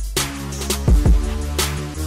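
Electronic intro music with deep held bass notes and hard, regularly spaced drum hits.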